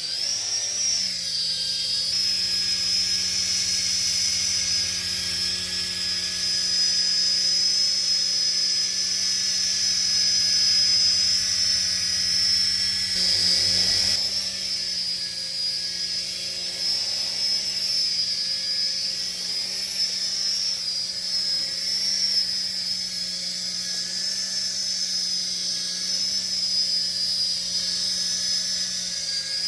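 DEERC toy RC helicopter in flight, its small electric motors and rotors making a steady high whine over a lower hum, with a brief wobble in pitch about halfway through.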